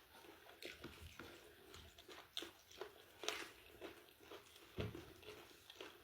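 A person chewing and biting fried chicken chicharrón close to the microphone: soft, wet chewing with scattered irregular clicks and small crunches.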